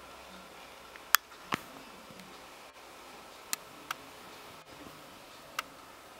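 A handful of short, sharp clicks and ticks from handling, about five in all, the loudest a little over a second in, over a faint steady hiss.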